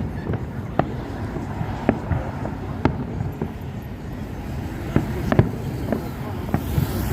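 Fireworks shells bursting in the distance, several sharp bangs at irregular intervals over a steady outdoor background.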